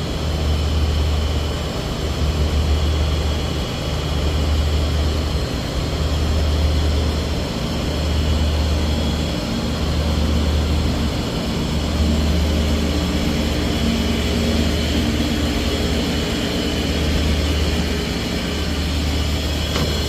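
Heavy machinery running steadily: a loud low drone that swells and eases every second or two, with faint steady high whines above it.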